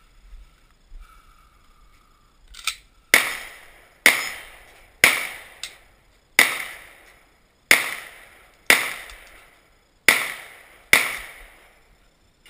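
Eight gunshots, roughly one a second, each cracking sharply and dying away in a short echo, with a small click just before the first.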